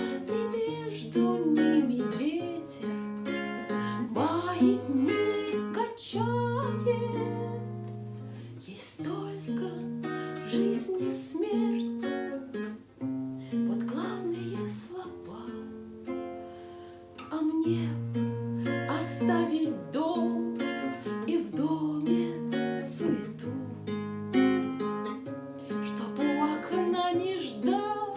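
Instrumental break in a song: plucked guitar playing a melody with bent, sliding notes over a steady bass line.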